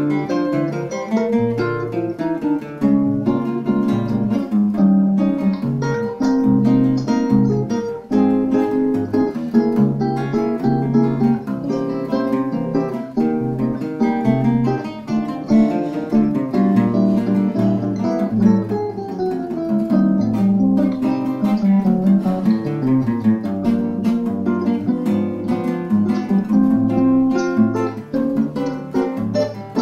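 Two classical guitars playing a choro duet, a fast run of plucked melody notes over a moving bass line without a pause.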